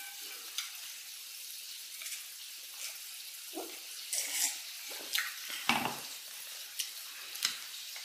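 Several gulps and swallows of water drunk from a stemmed glass, coming in the second half as separate short sounds, the strongest a little before six seconds in, over a steady hiss.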